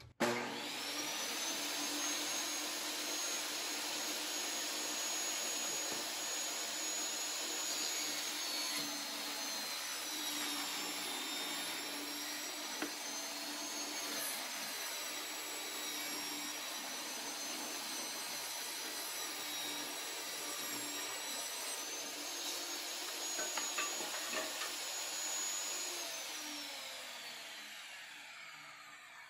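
Table saw starting up and running, ripping a reclaimed 1x6 board lengthwise. Its high whine dips in pitch while the board is fed through the blade, rises again once the cut is done, then fades as the saw is switched off and the blade spins down near the end.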